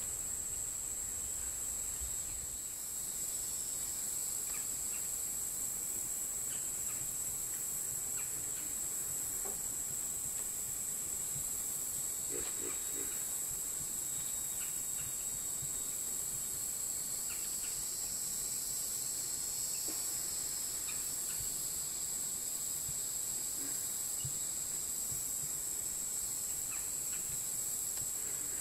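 Steady, high-pitched drone of an insect chorus, with a few faint scattered clicks.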